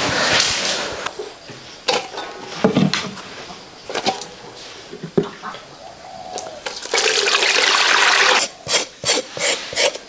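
Water pouring and splashing. One rush stops about a second in, a few knocks follow, and a second rush comes from about seven seconds, breaking into short splashes near the end.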